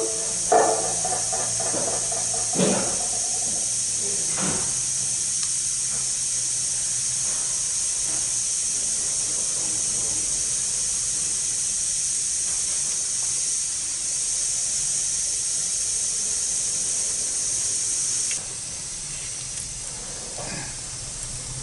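A steady high hiss with a few sharp metal knocks and clinks in the first few seconds as parts are worked at a transmission's axle bushing bore. One knock rings on briefly. The hiss drops in level near the end.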